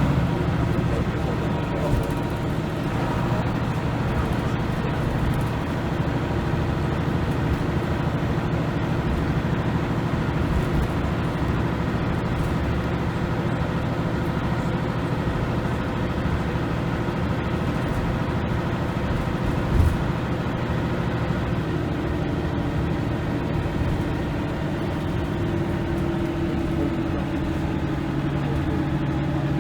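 Leyland National Mk2 bus's diesel engine running steadily under way, with a drone and road noise. A single thump comes about two-thirds of the way through, and the engine note rises near the end.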